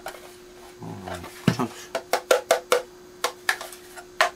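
Hands handling a Yamaha MG06X compact mixer, its case giving a quick run of sharp clicks and knocks, about a dozen over the last three seconds.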